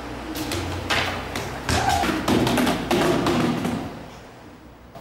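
Footsteps and thumps on concrete stairs: a quick, uneven run of knocks and taps that stops a little before four seconds in.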